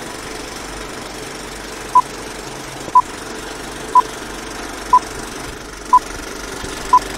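Film countdown leader sound effect: a steady mechanical film-projector rattle with a short, sharp beep once a second, six beeps in all, starting about two seconds in.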